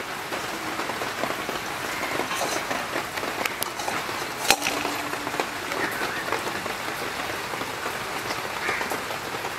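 Very heavy rain falling, a steady even hiss, with one sharp knock about halfway through.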